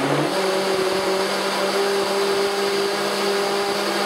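Powerful KitchenAid countertop blender running at speed, blending bananas into kale and water. Its pitch steps up a moment in as the motor reaches full speed, then holds a steady hum.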